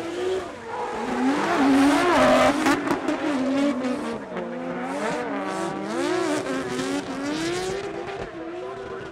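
Two drift cars, one a Mazda RX-7 FC, in a tandem drift: the engines rev up and down as the throttle is worked, over tyre squeal. Loudest about two seconds in.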